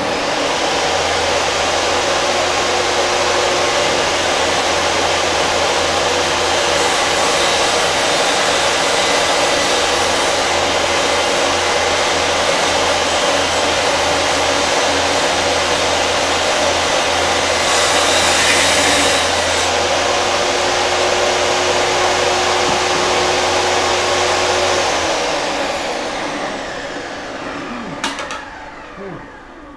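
Craftsman benchtop table saw starting up and running steadily while a runner strip is ripped off the stock, the noise growing louder for a moment about 18 seconds in. Near the end it is switched off and its whine falls away as the blade spins down, with a single click.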